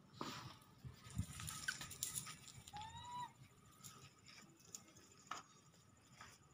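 Faint rustling of leaves and twigs as a baby monkey climbs through a small shrub, with scattered soft clicks. One short, high, slightly rising call about three seconds in.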